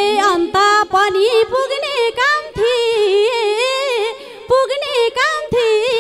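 A woman singing a lok dohori (Nepali folk sung-duel) verse into a microphone: a high, ornamented melody in short phrases, with a brief break about four seconds in.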